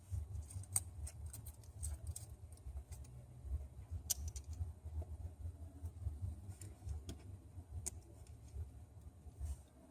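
Small screwdriver and tiny screws making faint, irregular light clicks against a phone's metal internal parts during reassembly, over a steady low rumble.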